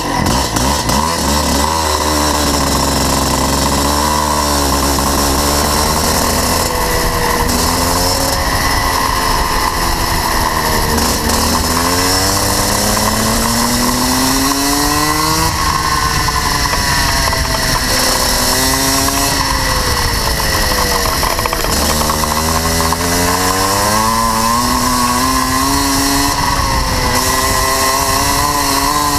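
Rotax Max 125cc two-stroke single-cylinder kart engine heard onboard, accelerating away and running on track. Its pitch climbs in long rising sweeps as the kart gathers speed, falling off sharply twice and then climbing again.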